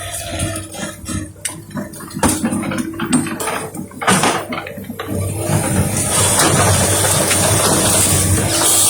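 Forestry harvester working: its engine runs with a steady hum under irregular knocks and clacks, then a louder, steady hiss rises about five seconds in.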